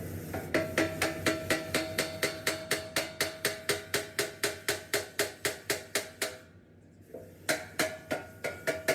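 Rapid, even hammer blows on metal, about four a second, each strike ringing. The hammering breaks off for under a second a little after six seconds in, then starts again.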